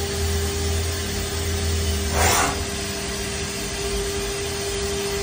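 Haas ST-30SSY CNC lathe running, a steady machine hum with a constant mid-pitched tone and a low rumble. About two seconds in comes a short rushing noise, about half a second long.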